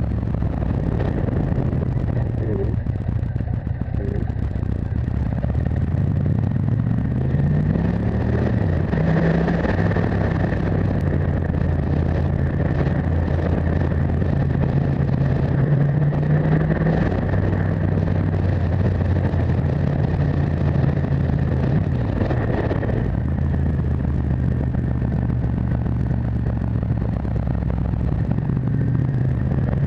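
Motorcycle engine running while riding, heard from on the bike with wind and road noise; its pitch rises as the bike speeds up about seven seconds in, then holds steady through the bends.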